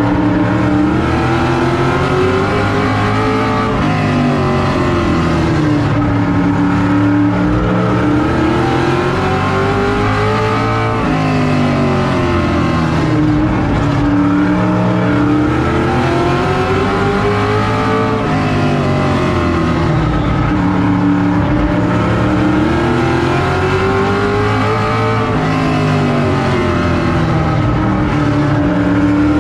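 Vintage modified race car's engine at racing speed, heard from inside the cockpit. Its pitch climbs on each straight and drops into each turn, about every seven seconds, lap after lap.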